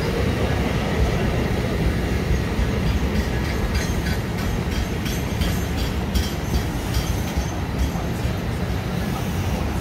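New Jersey Transit multilevel passenger coaches rolling past on the main line: a steady heavy rumble, with rapid light clicking of the wheels from about three seconds in.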